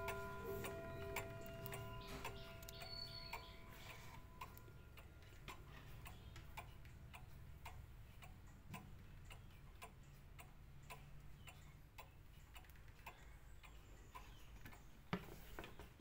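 Mauthe pendulum wall clock ticking with a steady, even tick-tock. The ring of its chime dies away over the first few seconds.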